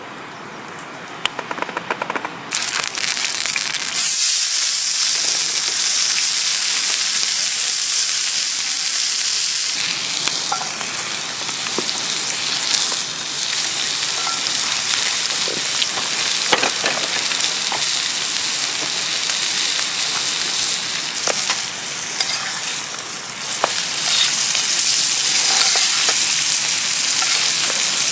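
Steak sizzling as it fries in a hot pan over a campfire. The sizzle starts about two and a half seconds in, turns loud about a second later, and carries on with scattered pops and crackles.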